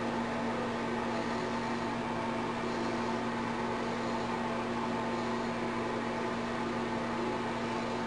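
Steady hum with an even hiss underneath, unchanging throughout, like a motor-driven appliance or fan running.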